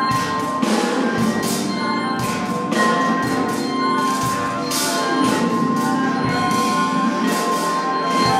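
Improvised ensemble music led by a vibraphone struck with mallets, with sharp ringing strikes about once a second over a long held high note.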